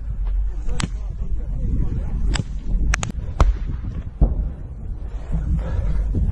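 Small-arms gunfire in a firefight: about six sharp shots at irregular intervals, two in quick succession about three seconds in, over a steady low rumble.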